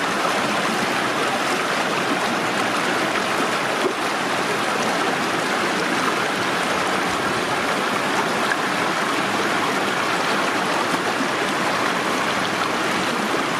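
Shallow stream rushing over and around boulders in small rapids, a steady close-up water noise.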